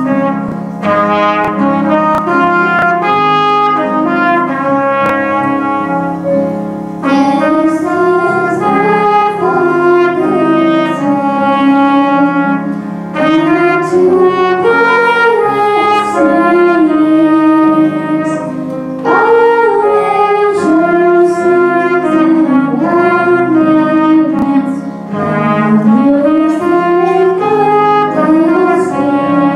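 Trumpet playing a hymn melody over grand piano accompaniment. From about seven seconds in, a girl's voice sings along into a microphone.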